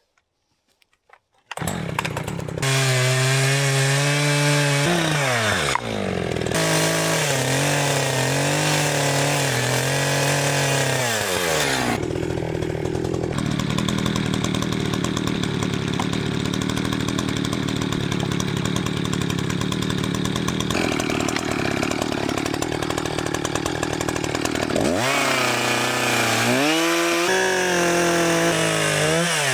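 ECHO CS-590 two-stroke chainsaw cutting wood, starting after a second and a half of quiet. The engine pitch rises and falls several times as the chain goes into and out of cuts, and it holds at high revs under load for about ten seconds in the middle.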